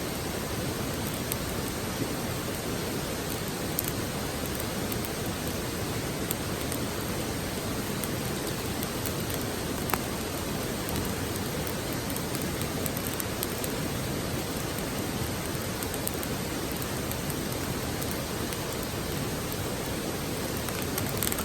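Campfire burning over a steady rushing hiss, with a few sharp crackles, more of them near the end.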